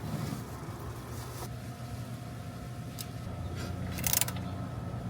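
A few sharp metallic clicks and a short clatter about four seconds in, from hand-tool work during an oil change, over a steady low hum.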